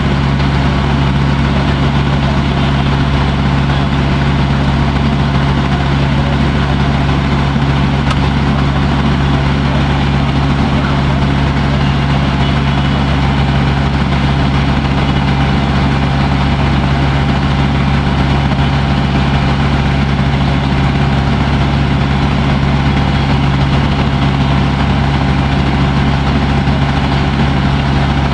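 A water taxi's engine running steadily, heard on board as a loud, even low drone with no change in speed.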